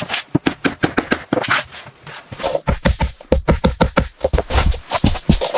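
A fast, irregular run of sharp taps and knocks from hand work on interior trim, with heavier thumps coming in about halfway through.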